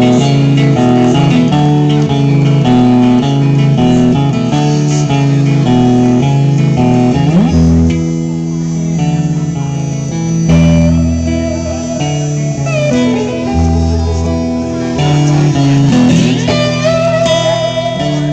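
Live blues-rock jam: electric guitars playing a repeating groove with strong low notes. A harmonica plays bent, wavering notes over it in the second half.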